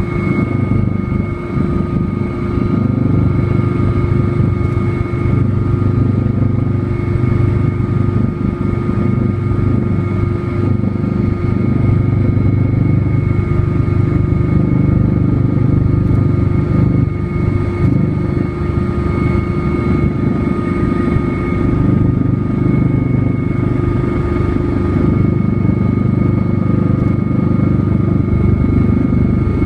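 Light aircraft in flight, its engine and propeller or rotor droning steadily: a low rumble with a steady high whine above it.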